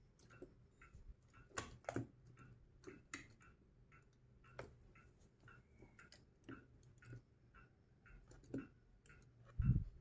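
Plastic-coated magnetic balls and sticks of a building toy clicking and knocking together as they are handled, with a few sharper clicks and a duller, louder knock near the end, over a faint regular ticking.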